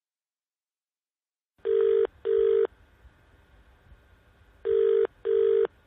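Telephone ringing tone heard down the line in the British double-ring pattern: two short rings, a pause of about two seconds, then two more, while a call waits to be answered.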